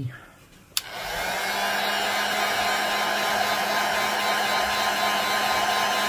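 GO/ON! hot air gun (an inexpensive 'industrial' heat gun) switched on with a click about a second in, then blowing steadily: a rush of air with a low hum under it, used to dry wet watercolour paint.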